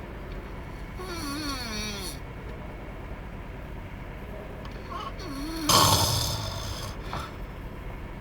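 A man snoring while asleep in a car's back seat. About a second in comes a wavering snore with a pitch that slides down, and near six seconds a loud snore, the loudest sound, over a steady low hum.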